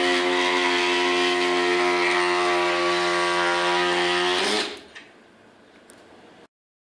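BTB powered cold-knife glass-removal tool running with a long-tip blade, cutting the urethane adhesive bead around bonded glass. It gives a steady whine that stops about four and a half seconds in.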